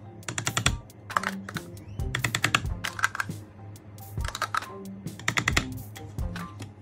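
Background music: a clicky, rhythmic percussion pattern with short plucked-sounding notes over a steady bass.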